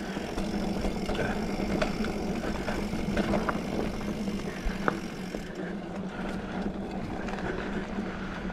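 Specialized Fuse 27.5+ mountain bike rolling along a dirt trail: steady tyre and riding noise with scattered clicks and rattles from the bike.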